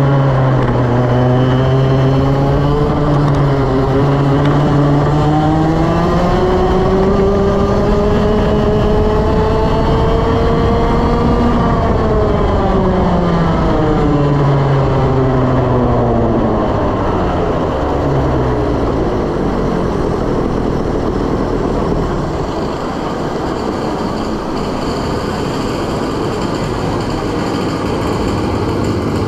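Two-stroke 125cc TaG kart engine, heard on board: its pitch rises steadily for about ten seconds as the kart accelerates, then falls as it slows, with the engine weaker and unsteady in the last third.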